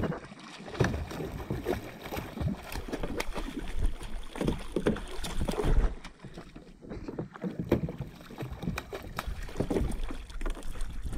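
Water splashing and sloshing around a kayak, with irregular knocks of handling on the hull and wind buffeting the microphone.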